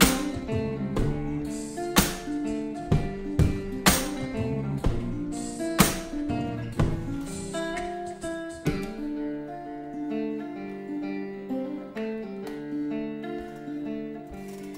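Acoustic guitar played solo with no voice: picked notes punctuated by hard strummed chords about every two seconds, then from about nine seconds in softer picked notes over a held bass note.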